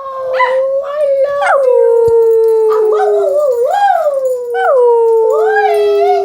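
Pet dog 'singing': howling in long drawn-out notes that slowly fall in pitch, two long howls with a short break in the middle. A second, higher voice wavers up and down over it.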